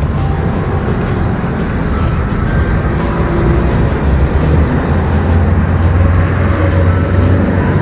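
Steady low rumble of road traffic, heavier in the second half.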